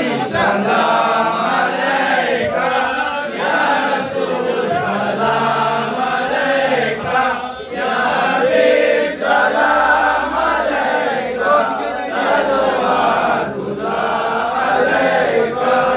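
Many men's voices chanting together in unison, loud and crowded, in repeated phrases broken by short pauses.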